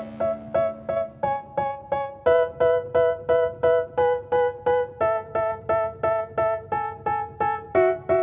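Music: an electric piano or keyboard playing short, evenly repeated notes, about three a second, with the chord shifting every couple of seconds.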